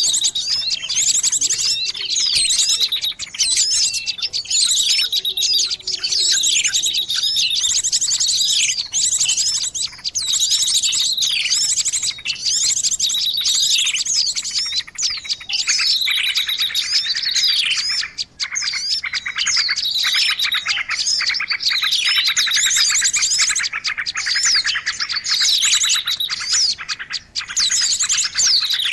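Many small songbirds chirping and trilling together in a dense, continuous racket: fast high trills overlaid with repeated falling whistled notes every second or two. It is a mixed bird-lure (pikat) call recording meant to draw small birds in.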